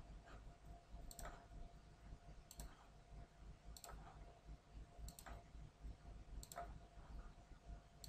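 Faint computer mouse clicks, five of them about every 1.3 s, each a quick press and release, placing nodes while lines are drawn in the CAD program.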